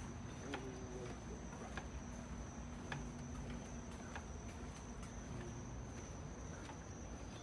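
Insects, crickets or similar, trilling faintly and steadily on one high pitch, with a few faint clicks.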